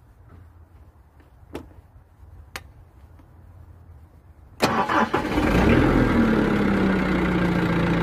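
Mitsubishi S4S four-cylinder diesel forklift engine starting at the first turn of the key about four and a half seconds in, after two faint clicks, its speed dipping briefly and then settling into a steady idle. This quick start shows the hard-starting problem cured: it was caused by burnt-out glow plugs and a contaminated fuel filter and diesel.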